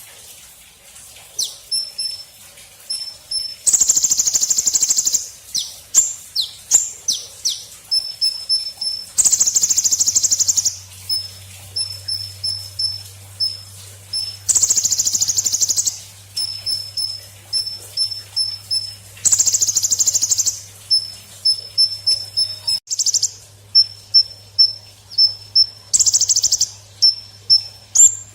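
Golden grasshopper (belalang emas) calling: runs of short, high chirps, several a second, alternating with loud, high buzzes of about a second and a half that come back roughly every five seconds.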